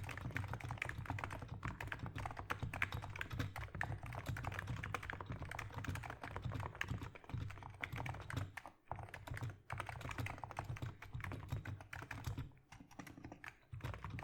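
Steady fast typing on a Niz Plum 75 keyboard with 35 g Topre-style dome switches: a dense run of soft keystrokes, with a couple of short pauses about nine seconds in and sparser strokes near the end.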